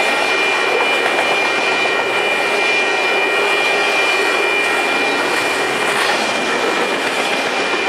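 Double-stack intermodal container cars rolling past on the track, a steady loud rumble and rattle of wheels on rail with a steady high-pitched whine running through it.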